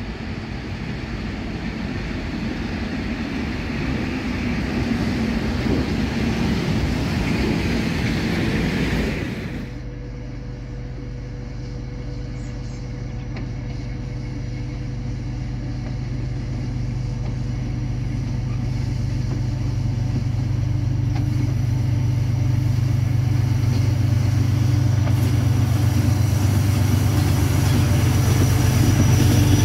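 A freight train rolling past with steady wheel-on-rail noise. About ten seconds in it gives way to a Class 311D diesel locomotive hauling loaded wagons toward the listener, its engine a deep steady drone that grows louder as it nears.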